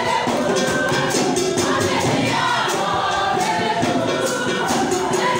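A group of voices singing together to a steady beat with percussion, in the style of a choir.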